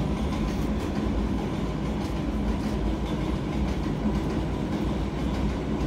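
A steady low rumble of background noise, with faint rustles of trading cards being slid apart by hand.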